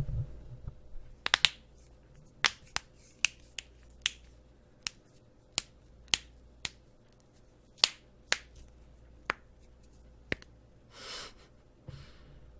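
Finger and hand joints cracking: a run of sharp, separate pops at irregular intervals, about twenty in nine seconds, followed by a brief soft hiss near the end.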